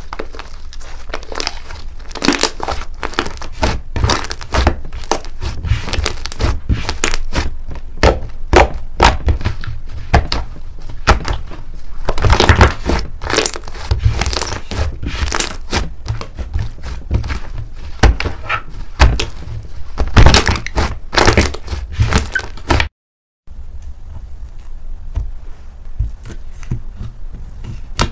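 Thick white fluffy slime being stretched, pressed and squeezed by hand, giving dense, irregular crackling and popping. Near the end it breaks off for a moment, then goes on more quietly.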